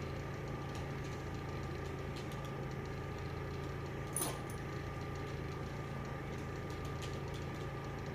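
Steady low mechanical hum with a fainter higher tone, broken by a single sharp click about four seconds in.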